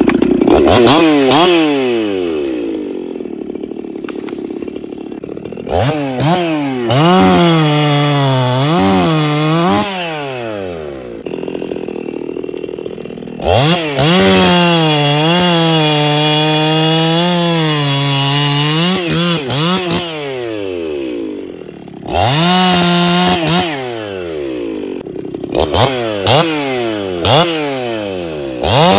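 Two-stroke chainsaw revving and cutting into wood three times, its engine pitch dipping and recovering under load, and dropping back to idle between cuts, with a few short blips of the throttle near the end.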